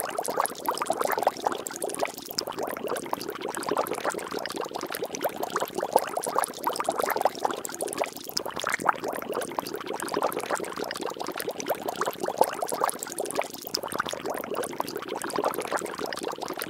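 Liquid bubbling and splashing in a dense, unbroken stream of small pops, at a steady level with no rhythm.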